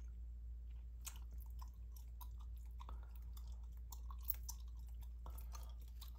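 Gum chewing close to the microphone: irregular short wet clicks and smacks, over a steady low hum.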